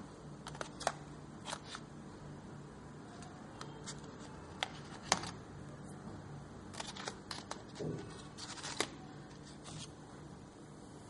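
Irregular light clicks and taps of crayons and paper being handled by hand, over a steady low hum.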